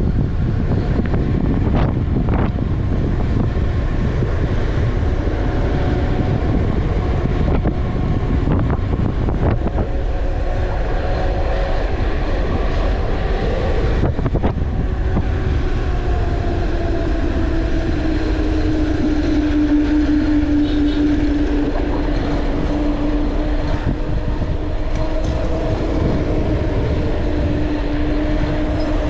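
Wind rushing over the microphone of a mountain bike coasting fast downhill on asphalt. A steady humming tone comes in about halfway through and wavers slightly.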